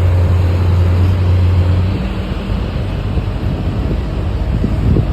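Diesel engine of heavy machinery running with a steady low drone; about two seconds in the drone drops away and a rougher, noisier rumble continues.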